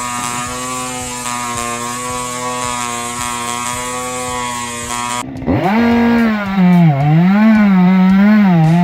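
Large gasoline chainsaw engine running at a steady high speed. About five seconds in, the sound cuts abruptly to a louder saw whose engine speed rises and falls repeatedly, as under changing load.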